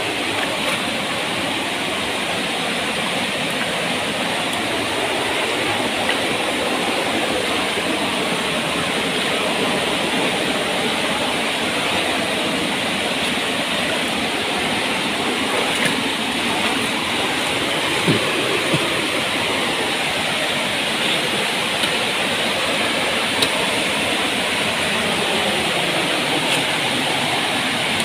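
Waterfall cascading over rock into a pool: a steady, even rush of falling water.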